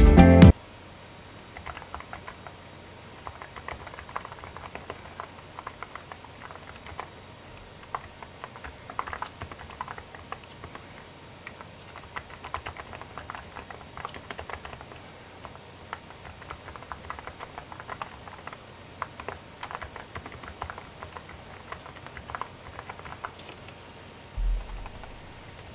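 Typing on a GUTS STELLA87 full-aluminium custom mechanical keyboard: irregular runs of quick key clicks and clacks, with pauses between bursts. A brief low thump comes near the end.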